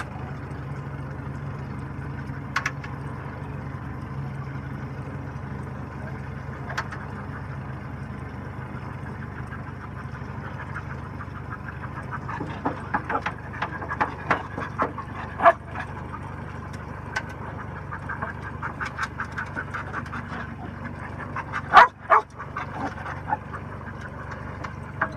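A search dog's excited whines and short barks as it works a scent off the boat's bow, coming in quick runs through the second half with one loud bark near the end. A boat motor runs steadily at low speed underneath.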